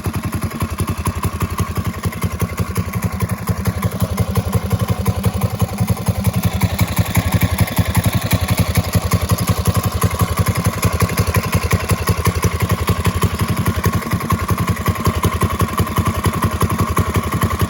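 Small single-cylinder engine of a 1970 Bird minibike running steadily at idle with even, rapid firing. It has just had its carburetor main jet changed one size smaller because it was running rich.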